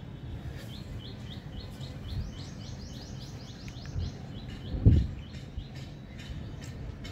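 A bird chirping a fast series of short rising notes, about six a second, the notes pitched higher in the middle of the run, over a low background rumble. A single dull thump, the loudest sound, comes about five seconds in.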